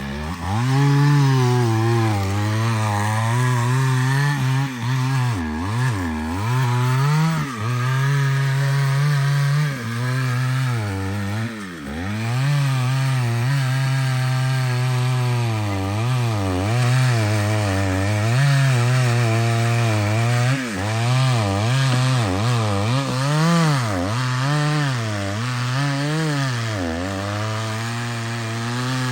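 Chainsaw cutting into a large hardwood trunk. The engine revs up at the start, then runs at high speed, its pitch repeatedly sagging as the chain bites under load and climbing back as it frees.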